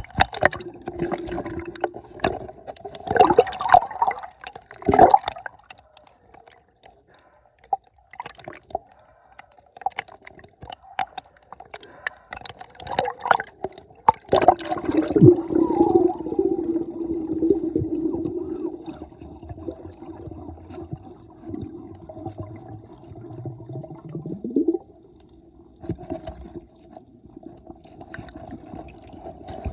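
Sea water sloshing and splashing around a camera at the surface, with several sharp splashes in the first half, then muffled underwater sound with a steady low hum.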